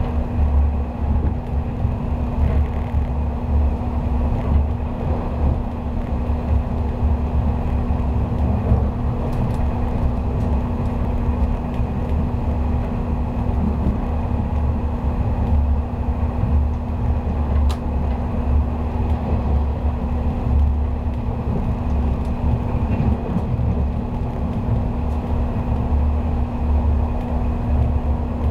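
JNR 485-series electric train running at speed, heard from inside the passenger car: a steady low rumble of wheels on rail with a constant hum.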